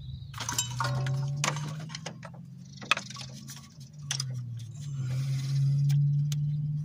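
A hand tool clicking and ticking against metal on a truck's throttle body, in irregular light clicks, over a steady low hum.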